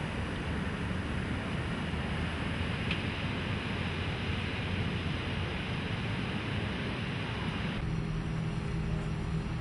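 Rushing floodwater, a steady noisy roar with wind on the microphone. About eight seconds in, it changes abruptly to a steady low hum with a held low tone.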